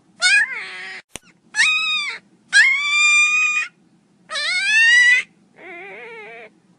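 Miniature pinscher puppy crying loudly: five high-pitched whining cries in a row, the third the longest and the last one softer and wavering. A single sharp click sounds about a second in.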